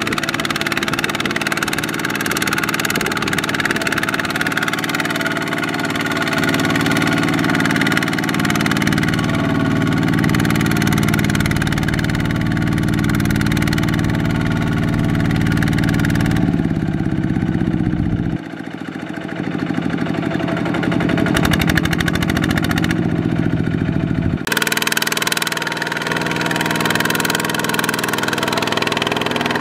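Single-cylinder diesel engine of a two-wheel walking tractor running hard under load as it drags a laden trailer through mud. The engine note drops and shifts abruptly a few times in the second half.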